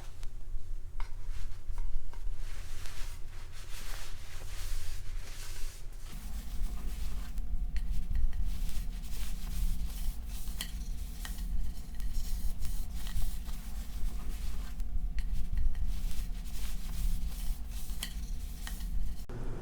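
Cloth rubbing walnut oil onto a wooden box, heard as scattered brushing and rubbing strokes. Under it runs a steady low hum that gets louder about six seconds in.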